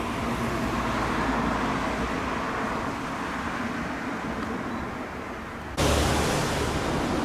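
Steady outdoor background noise with no distinct events. About six seconds in it jumps suddenly louder and fuller.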